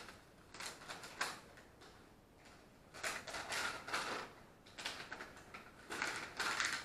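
Hands rummaging through a cardboard box of packing peanuts and pulling out wrapped items: irregular rustling and crinkling, louder about three seconds in and again near the end.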